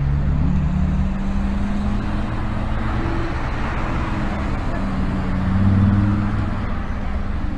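Audi R8 engine running as the car drives round a roundabout, swelling to a louder rev shortly before six seconds in, over a steady hiss of road traffic.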